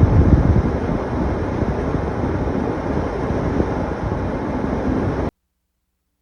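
Car driving, heard through a dash camera's microphone inside the vehicle: steady engine and tyre noise, slightly louder in the first second, cutting off abruptly about five seconds in.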